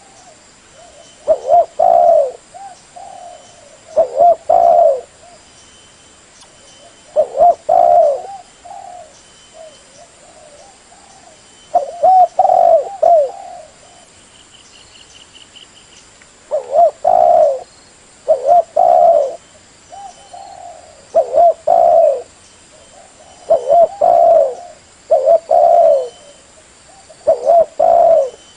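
Spotted dove (tekukur) cooing: a phrase of low, throaty coos repeated about every two to three seconds, with a longer pause in the middle.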